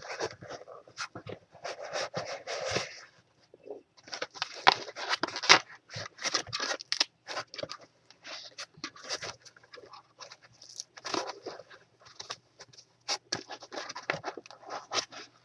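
Packaging being handled during an unboxing: irregular rustling, crinkling and scraping, with sharp clicks and taps, in stop-start bursts.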